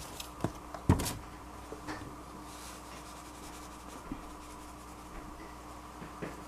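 Quiet kitchen handling while seasoning a steak on a plastic cutting board: a sharp knock about a second in and a few light taps, over a steady low hum.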